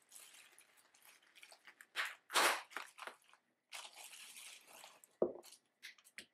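Bubble wrap crinkling and rustling as an album in a plastic sleeve is pulled out of it, with the loudest crunch about two and a half seconds in. Just after five seconds there is a short thump as the album is set down on the table.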